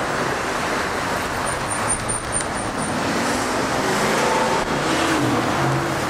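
Street traffic: cars driving past on a busy road, a steady rush of road noise, with a low engine hum coming in about five seconds in.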